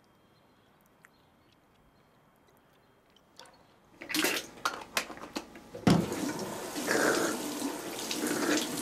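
Near silence with a few faint clicks, then about four seconds in a bathroom sink tap runs. Water splashes and sloshes as hands scoop it up to a face.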